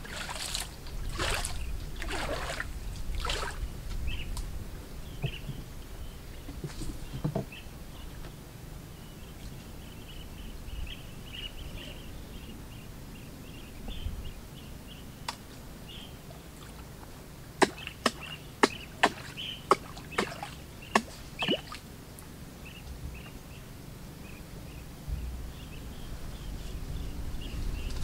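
Paddle strokes in shallow water beside a small wooden boat: a few sloshing strokes about a second apart at the start, then about seven sharp knocks in quick succession about two-thirds through. A faint, rapid high chirping runs underneath.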